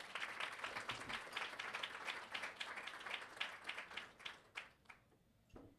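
Audience applauding, many hands clapping at once, dying away about five seconds in.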